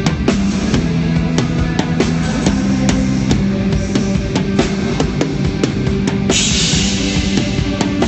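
Live rock band playing with a drum kit keeping a steady beat over sustained low bass and guitar notes. A cymbal wash comes in about six seconds in.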